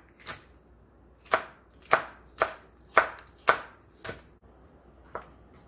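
Chef's knife slicing red and green chili peppers diagonally on a wooden cutting board, each cut a sharp knock of the blade on the board. About eight cuts, roughly two a second, with a pause before the last.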